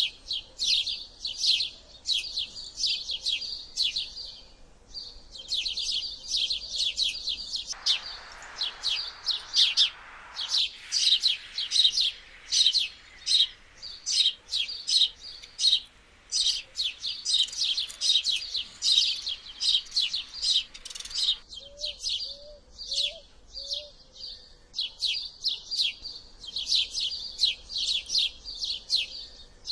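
House sparrow chirping: a rapid, continuous run of short, sharp chirps, several a second, with brief pauses.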